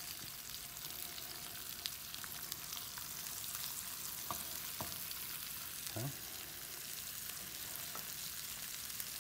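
Tilapia fillet pan-searing in hot oil in a sauté pan: a steady frying sizzle with fine crackles and pops, and a couple of faint knocks midway.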